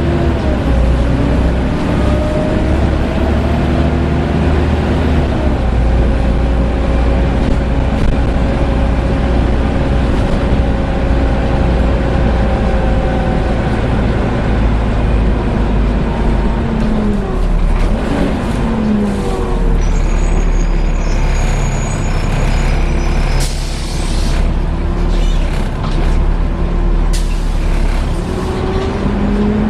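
Volvo B7TL double-decker bus heard from on board, its engine and loud whining cooling fan ('hoovering') running throughout. The whine falls as the bus slows about two-thirds of the way in, short air hisses from the brakes follow, and the pitch rises again as it pulls away near the end.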